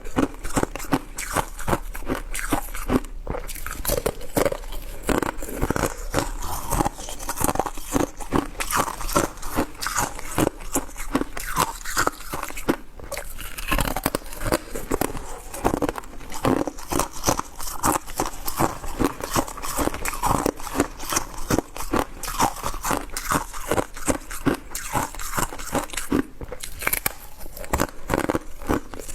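A person chewing shaved ice: a dense, continuous run of crisp crunches and bites, several a second, with no pause.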